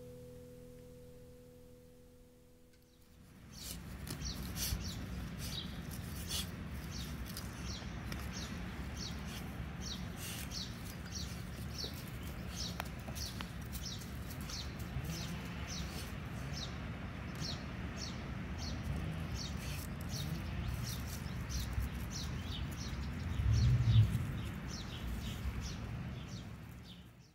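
A small bird chirping over and over, about two short chirps a second, above a steady low rustling rumble of backyard ambience. A louder low thump comes near the end.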